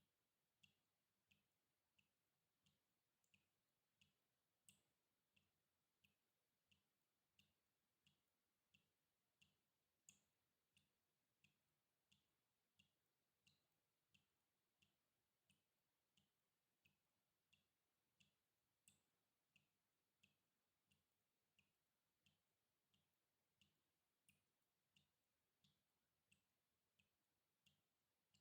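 Water dripping, very faint: single drops falling in an even rhythm, about three every two seconds, with an occasional louder drop.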